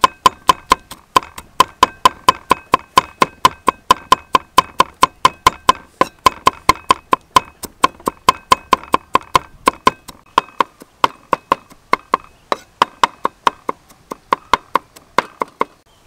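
A kitchen knife chopping garlic on a wooden board, a steady run of sharp knocks about four a second with a few short pauses, stopping shortly before the end.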